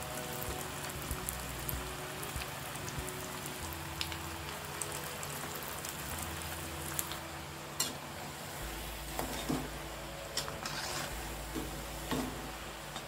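Bondas of idli batter deep-frying in hot oil: a steady sizzle with scattered sharp pops and crackles.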